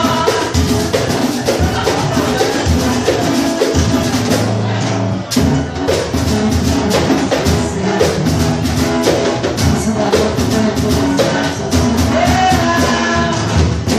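Batucada samba drum ensemble playing live: many drums and percussion instruments in a dense, driving rhythm, with a brief drop in the playing about five seconds in before the full group comes back in.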